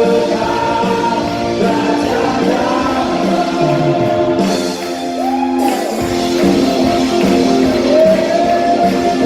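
Live worship music: a Sunday school choir singing a Christmas praise song over band accompaniment, the bass briefly dropping out around the middle.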